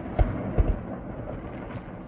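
Aerial fireworks: two low booms in the first second, followed by a steady low rumble.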